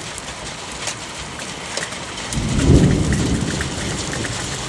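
Pea-sized hail pelting down hard, a steady hiss full of small sharp impact ticks. A loud low rumble of thunder swells a little over two seconds in and then fades.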